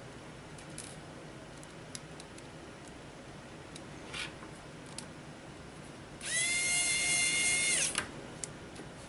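Small electric screwdriver motor whirring for about two seconds: its whine rises as it spins up, holds steady, then stops abruptly. A few light clicks and taps of handling come before it.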